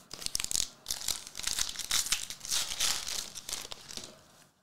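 Foil wrapper of a trading-card pack being crinkled and torn open by hand, a dense run of sharp crackles that stops shortly before the end.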